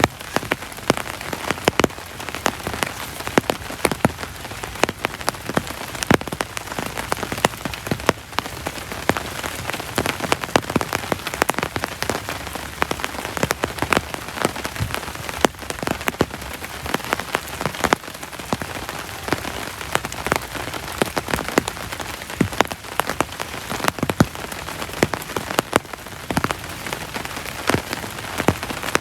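Heavy rain falling steadily, with a constant hiss and many sharp, irregular drops striking a surface close by, several each second.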